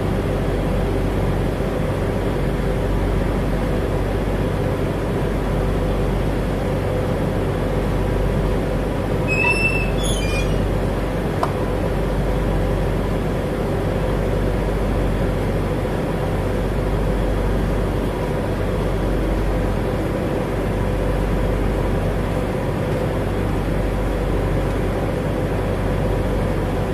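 Steady drone of a passenger ferry's engines heard on board during the crossing, with a couple of brief high squeaks about ten seconds in.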